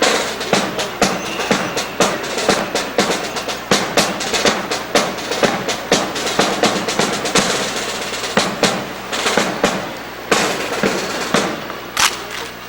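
Rapid rhythmic percussion: snare-drum beats and rolls with sharp clacks, several strikes a second. It thins near the end into a few separate loud hits.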